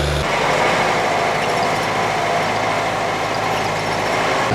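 Big farm tractor engines running hard as they pull a stuck tractor out of mud. About a quarter second in, a steady low hum cuts abruptly to a rougher, higher engine noise, which changes abruptly again near the end.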